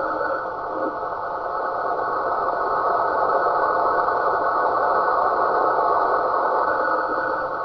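Radio receiver noise: a steady rushing hiss held to a narrow band of middle pitches, easing slightly about a second in and swelling back, the rasping signal likened to snoring.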